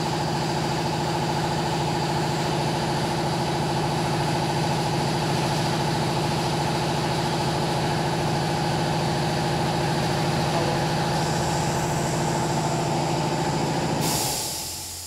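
Steady electric machine hum with a buzzing tone, cutting off abruptly near the end and leaving a hiss that fades away.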